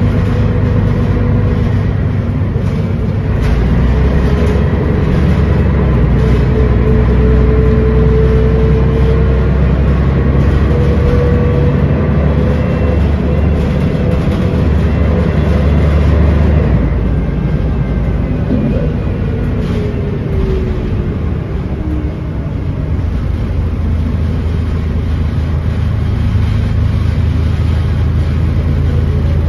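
Scania L113 bus's rear-mounted 11-litre six-cylinder diesel heard from inside the saloon, working under load as the bus gets under way and drives on, with a faint gliding whine. The engine note deepens a few seconds in, eases off about two-thirds of the way through, then picks up again near the end.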